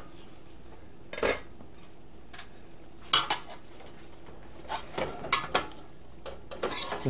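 Metal knife and slotted spatula scraping and clinking against the bottom of a metal roasting pan as a baked meatloaf is cut and pried loose, with sharp clinks every second or two. The loaf is stuck to the unsprayed pan.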